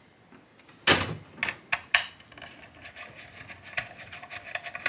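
Small steel screws being backed out of an aluminium power-supply housing with a hand Phillips screwdriver, with loose screws clinking. There are several sharp metallic clicks in the first two seconds, the loudest about a second in, then a run of light ticks and scraping from the turning screwdriver.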